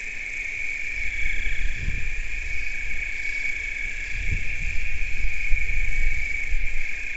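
A steady high-pitched buzzing drone, with low rumbling swells about two and four seconds in.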